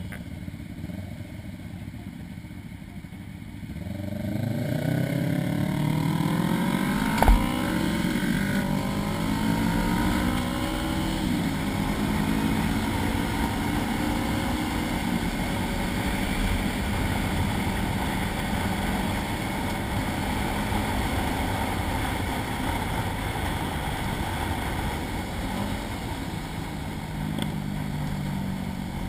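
Sport motorcycle engine ticking over quietly, then pulling away about four seconds in, its pitch rising as it accelerates through the gears. One sharp knock comes a few seconds later. Then it runs steadily at speed under road and wind noise, rising again near the end.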